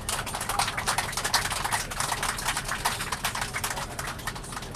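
Rapid, irregular clicking and rattling, several clicks a second, over the steady low drone of an airliner cabin.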